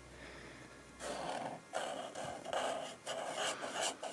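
Pink metallic felt-tip marker scratching across brown kraft card in a series of short strokes as letters are written, starting about a second in.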